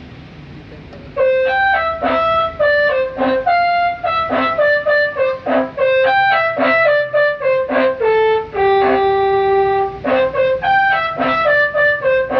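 Tour bus telolet musical horn playing a tune: a quick run of short, bright horn notes starting about a second in, with one longer held note past the middle.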